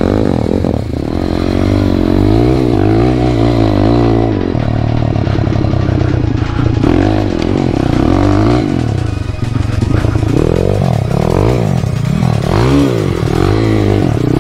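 Jawa KTM motorcycle engine revving hard and repeatedly, its pitch swinging up and down over and over as the bike slides and spins its rear wheel on snow.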